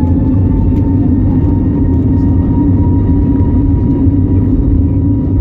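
Airbus A320neo's CFM LEAP-1A turbofan engines at takeoff thrust, heard inside the cabin: a loud rumble with a steady high whine that has just finished rising as the engines spool up.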